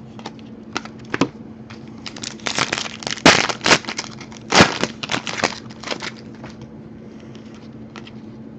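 Trading cards and their plastic packaging being handled: scattered light clicks, then a run of loud crinkling and crackling from about two to six seconds in, over a faint steady hum.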